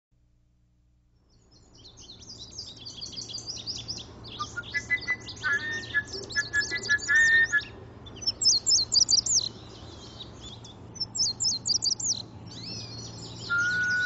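Several songbirds singing and chirping together, fading in over the first second or two: dense high, rapid chirps with a few steady whistled notes held for about a second.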